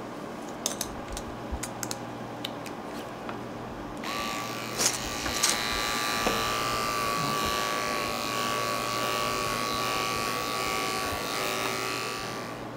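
Electric pet clipper with a comb guard: a few light clicks as it is handled, then it switches on about four seconds in and runs with a steady high hum, skimming through a Persian cat's long mane fur, and stops near the end.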